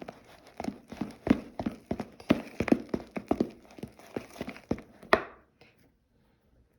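A spoon stirring slime mixture in a bowl, knocking and scraping against the bowl in a quick irregular run of taps, two or three a second, that stops about five seconds in.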